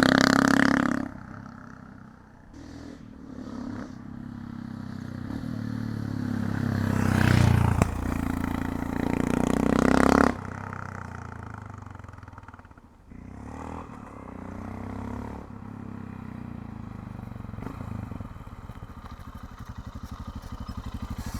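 2020 Royal Enfield Himalayan's single-cylinder engine breathing through a Lextek slip-on silencer as the bike is ridden past. It is loud and close at first and fades about a second in, then builds to a second loud pass that cuts off about ten seconds in. Toward the end it runs steadily at low revs with an even beat.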